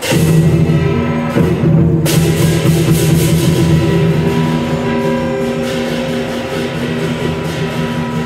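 Loud lion dance percussion: Chinese drum, cymbals and gong. Crashes come at the start and again about two seconds in, under a steady ringing.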